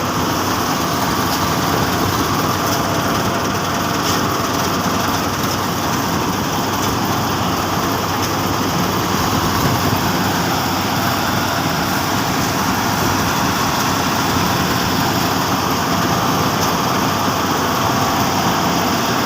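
Rice combine harvester running steadily, its engine and machinery making a continuous noise.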